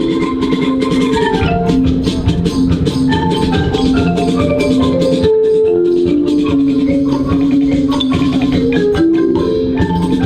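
Percussion ensemble playing a lively dance piece: a quick melody of short notes on mallet instruments over a steady pulse of drums and other percussion.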